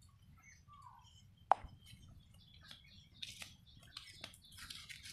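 Quiet village outdoor ambience: faint scattered bird chirps and small clicks, busier in the second half, with one sharp tap about a second and a half in.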